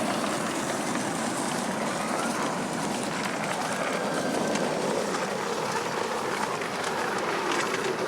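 Miniature railway train running on the track: a steady running noise with faint clicks of wheels over the rails.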